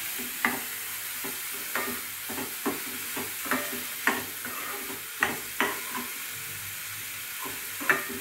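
Chopped onions, ginger and green chilli sizzling in oil in a pan, with a metal spatula scraping and clinking against the pan every second or so as they are stirred.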